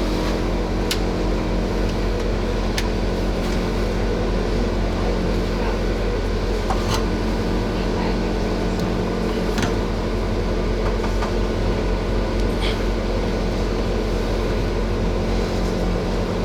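A machine running steadily with an even hum, and a few short clicks and knocks scattered through it.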